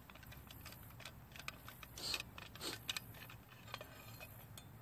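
Screwdriver working the muffler bolts of a chainsaw: faint small metal clicks and ticks of the tool in the bolt recesses, with two louder scrapes about two seconds in.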